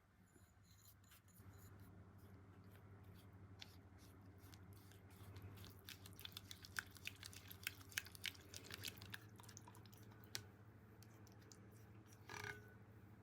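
Faint clicks and light taps of small kitchen handling over a low steady hum, with one brief louder rustle near the end.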